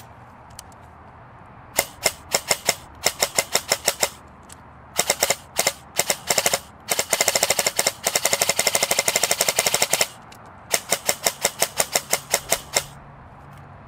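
RWA Battle Arms Development SBR electric airsoft rifle (AEG) firing: strings of quick shots, with one unbroken full-auto burst of about three seconds in the middle.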